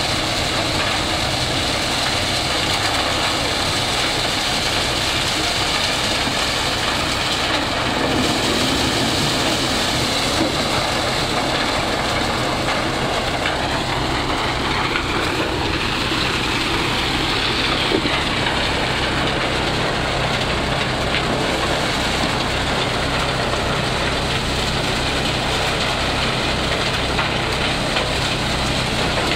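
Maize thresher running steadily under load as cobs are fed in and shelled: a dense, even threshing noise over a steady low hum from its drive.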